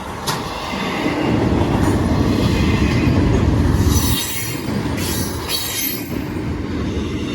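Freight train rolling past, its wheels rumbling on the rails. The wheels squeal high for a few seconds around the middle.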